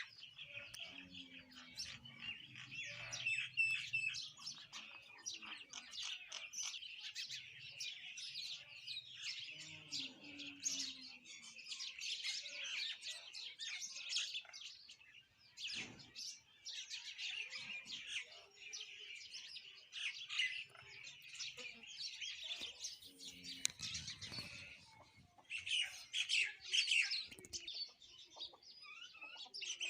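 A chorus of sparrows and common mynas chirping continuously, with many short overlapping calls, a couple of brief lulls and a louder burst of chirping near the end.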